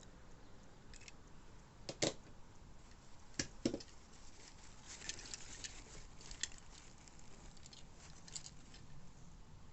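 Hands handling plastic packaging and small diecast model cars: scattered light clicks and crinkling, with sharper knocks about two seconds in and twice around three and a half seconds in.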